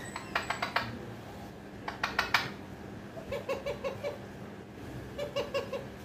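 Alexandrine parakeet making two quick runs of four or five sharp clicks, then two series of four or five short, evenly repeated chattering notes.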